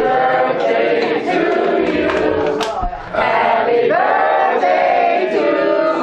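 A roomful of people singing a birthday song together, with a brief break between lines about three seconds in.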